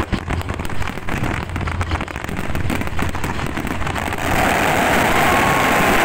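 A fireworks display with many shells going off at once, rapid crackling pops over a low rumble. About four seconds in, this gives way to a denser, steady rushing noise.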